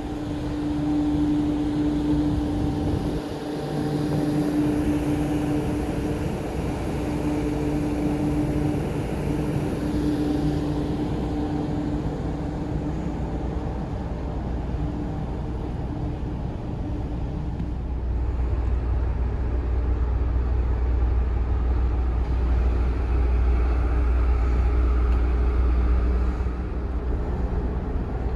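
Steady machinery hum aboard the ferry Queen of Oak Bay while it lies at its berth. A droning tone is clearest in the first dozen seconds and then fades, and a deeper low rumble swells from about 18 to 26 seconds in.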